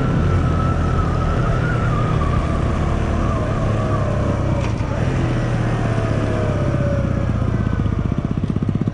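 Small 125 cc single-cylinder motorcycle engine running, its pitch falling slowly as the bike eases off. It settles into an even idle near the end.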